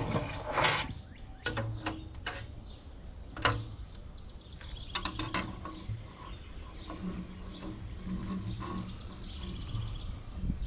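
Scattered clicks and knocks of a pull-down kitchen faucet and its hose being handled and fed down into a stainless steel sink, with birds chirping in the background.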